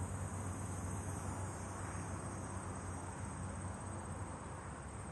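Night-time crickets trilling steadily at a high pitch over a low, even background hum.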